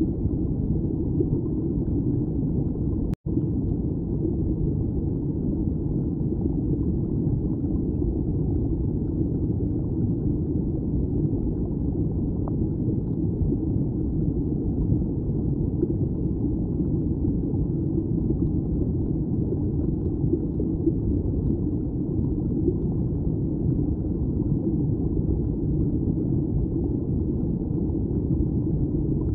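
Steady muffled low rumble of stream water heard underwater through a submerged camera, with a momentary dropout about three seconds in.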